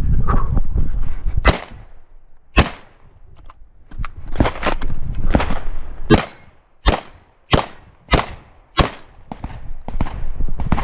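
Shotgun shots during an IPSC shotgun stage: two single shots in the first three seconds, then a steady string of shots about two every 1.5 seconds from about halfway through. Stretches of rumbling noise come between them, near the start and a little before the string.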